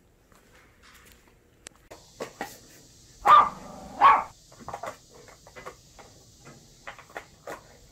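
Golden retriever barking twice, about a second apart, demanding to be let outside to relieve herself, with fainter short sounds after.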